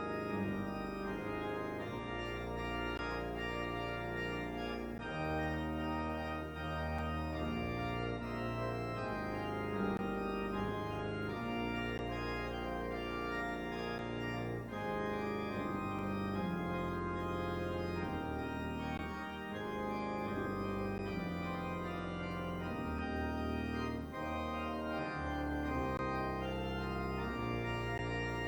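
Organ playing the closing postlude: sustained chords over bass notes that change every second or two, without a break.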